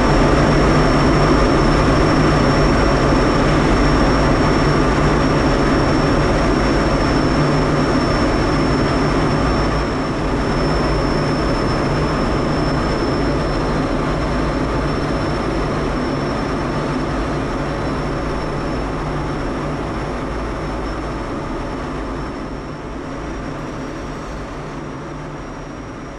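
Cockpit noise of a Kawasaki T-4 jet in flight: a steady rush of air and turbofan engine noise with a thin, steady high whine. It slowly fades toward the end.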